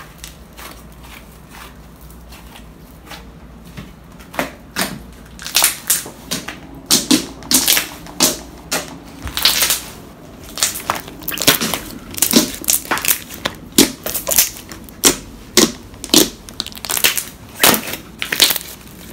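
Homemade slime being stretched, folded and kneaded by hand, giving an irregular run of short pops and crackles as it is worked. The pops start about four seconds in and come one to three a second.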